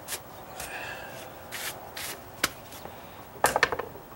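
A few strokes of a stiff-bristle hand brush swept over a scraped wooden stair tread to clear it before priming, then a quick clatter of sharp knocks near the end as the brush is set down on the wooden step.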